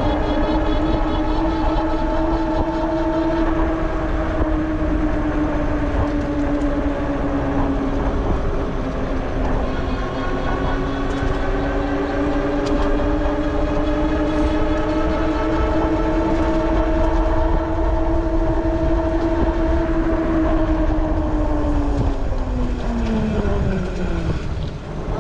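Electric bike hub motor whining steadily under power over a low rumble of wind and tyres. The whine drops in pitch near the end as the bike slows.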